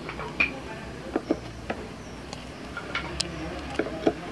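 Irregular light wooden knocks and clicks as a jati belanda (pallet-wood) panel is pushed and settled into a cabinet door frame by hand, board tapping against frame.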